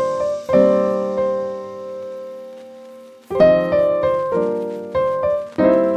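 Background piano music: struck chords that ring and die away, one held and fading for about two and a half seconds, then several more chords in quick succession.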